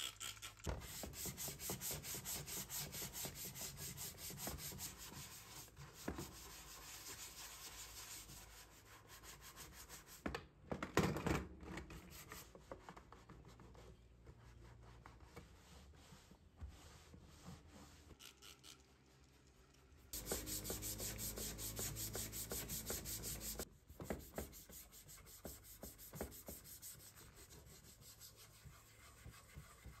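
A Smith-Corona typewriter cover panel being rubbed and scrubbed clean by gloved hands with a wet cloth: spells of quick back-and-forth rubbing strokes, with a brief louder knock of handling about eleven seconds in and a louder, faster spell of scrubbing about twenty seconds in.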